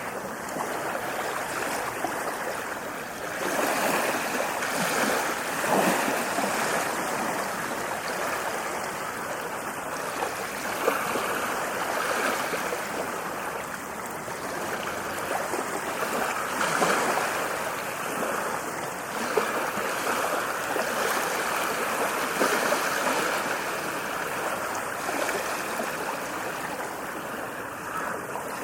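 Ocean waves washing onto a shore, a continuous rush of surf that swells and eases every few seconds.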